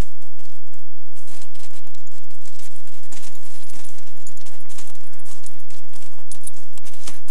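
Footsteps crunching in packed snow: an uneven series of crisp steps, of someone walking behind dogs across a trampled snowfield.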